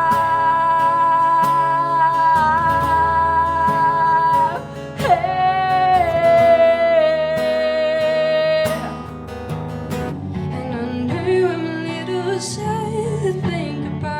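Singing with acoustic guitar: a long held vocal note, then a second, lower held note, followed by a softer, wavering sung passage over strummed chords.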